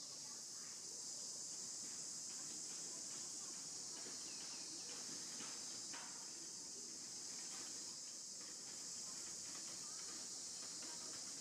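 Steady, high-pitched drone of insects singing in the trees, with faint scattered ticks and rustles underneath.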